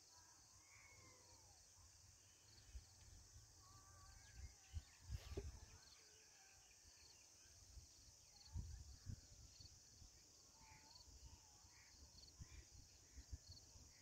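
Faint rural field ambience: a steady high insect drone with a small chirp repeating at an even pace, and scattered faint bird calls. A few low thumps come about five and nine seconds in.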